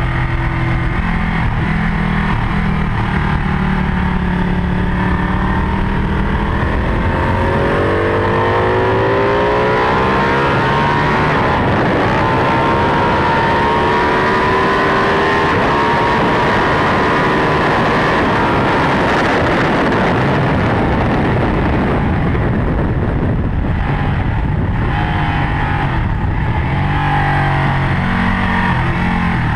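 Ducati 1199 Panigale's Superquadro V-twin engine under hard acceleration through several upshifts, its pitch climbing in steps, with wind rush on the onboard microphone growing loudest at top speed. Near the end the engine drops in pitch as the bike slows for a corner.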